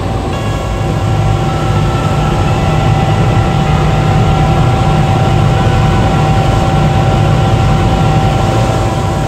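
Tyre pyrolysis plant running: a steady industrial machinery drone with a low hum and a thin, steady high whine over it.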